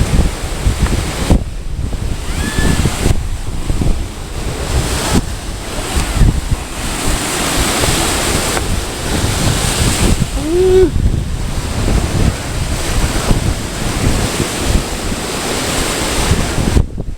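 Ocean surf washing against the jetty rocks, with strong wind buffeting the microphone, a steady rumbling rush throughout.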